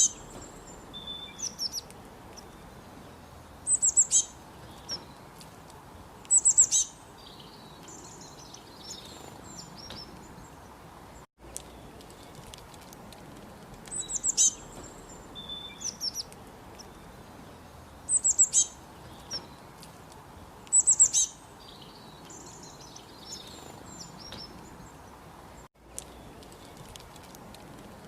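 Small birds chirping: short clusters of quick, high, falling notes every few seconds over a steady background hiss. The sound cuts out for an instant twice.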